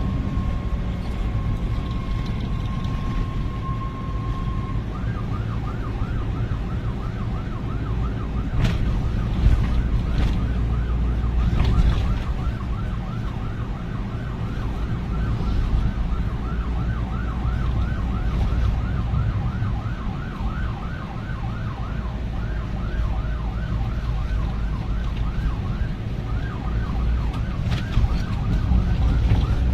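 Vietnamese traffic police siren. A steady tone sounds for about the first four seconds, then the siren switches to a fast, repeating rising yelp. Heavy traffic and engine rumble runs underneath.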